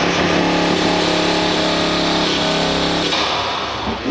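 Modified Audi 2.5 TFSI turbocharged five-cylinder engine, fitted with an open cone air intake, running with a steady, even note held for about three seconds before it falls away.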